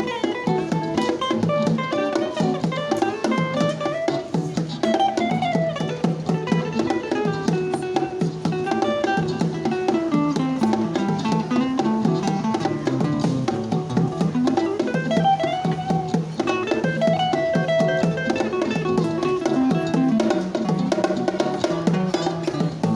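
Acoustic guitar played live in fast, improvised melodic runs over a steady percussive beat.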